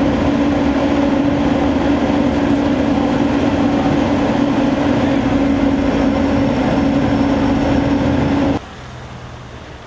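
Loud, steady machine noise with a constant low hum, cutting off suddenly about eight and a half seconds in.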